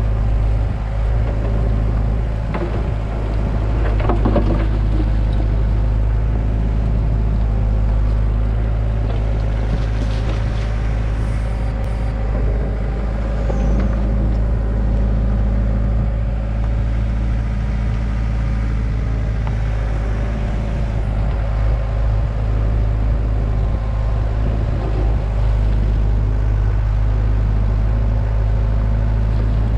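Hyundai excavator's diesel engine running steadily under load while the bucket digs, with a few short scrapes and knocks of the bucket against dirt and rubble in the first few seconds.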